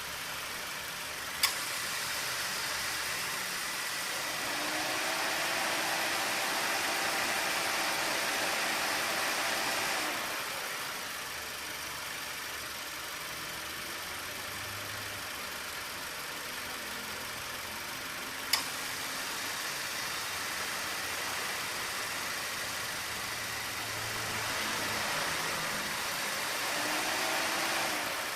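Engine bay of a 2018 Subaru Forester idling with the air conditioning on. The A/C compressor clutch clicks in twice, about seventeen seconds apart, and each click is followed by several seconds of louder whirring with a faint hum. The compressor is moderately worn but gives no abnormal noise.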